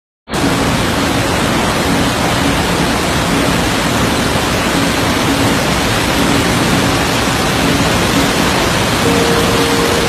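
Steady, even rush of a large waterfall's falling water.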